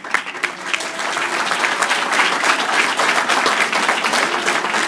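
Banquet audience applauding, many hands clapping at once; the applause swells in the first second and starts to fade near the end.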